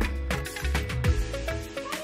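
Background music with a steady drum beat under held instrument notes.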